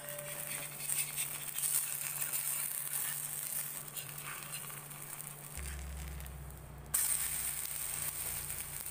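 Tomato dhirde (a savoury batter pancake) sizzling in oil on a hot iron tawa while a spatula flips it and presses it down. The sizzle dips about five and a half seconds in and comes back louder about seven seconds in.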